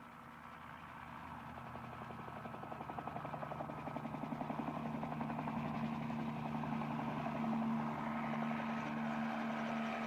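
A motor running with a steady low hum that grows louder over the first several seconds, then holds.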